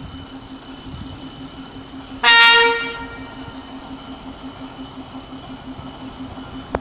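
ChME3 shunting diesel locomotive sounding one short, loud horn blast about two seconds in, over the steady run of its idling diesel engine. A single sharp click comes near the end.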